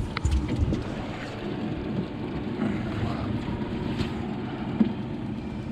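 Fishing boat's motor running steadily, with wind on the microphone. A few clicks at the start and a single knock near the end.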